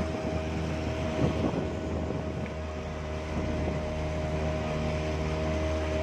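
Outboard motor of a small boat running steadily under way, a constant hum with rushing wind and water noise. There is a brief thump about a second in.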